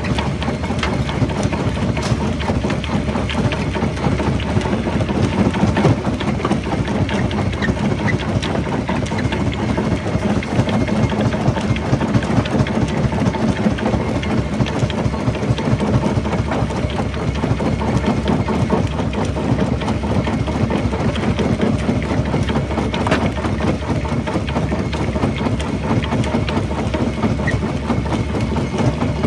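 Jaw rock crusher running continuously, a steady low machine drone under a dense, unbroken clatter of rock being crushed.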